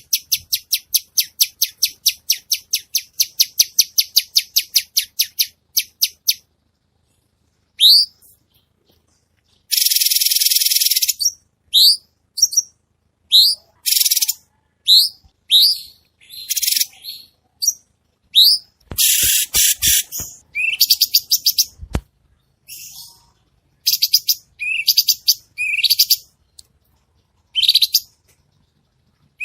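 Cucak cungkok songbird singing: a fast run of sharp repeated notes, about eight a second, for the first six seconds, then after a short pause a string of quick rising whistles and rapid trilled bursts. A couple of faint knocks come about two-thirds of the way in.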